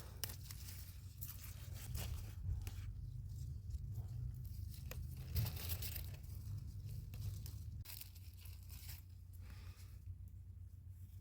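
Repeated crisp tearing and crackling, as of something torn or crumpled by hand, over a steady low hum.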